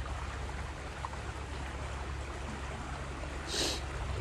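Creek water running steadily, with a brief hiss about three and a half seconds in.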